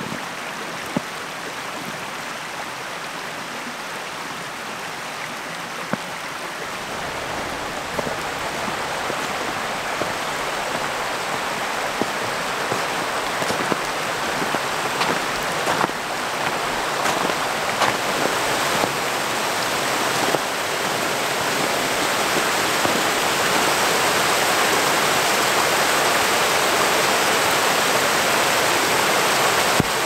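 Rushing creek water, a steady hiss that grows gradually louder, with a few short clicks scattered through it.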